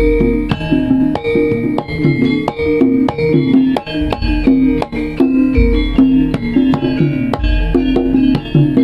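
Live jaranan music: quick hand-drum strokes over ringing pitched percussion lines, with a deep pulsing bass.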